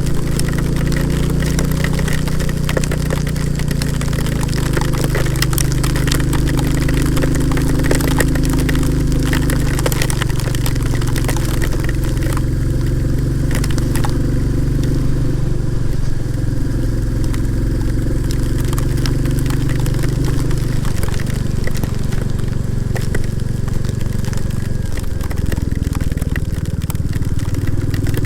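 Royal Enfield Classic 350's single-cylinder engine running at steady cruising speed while ridden, easing off briefly twice in the second half. Heavy rain adds scattered sharp ticks of drops striking.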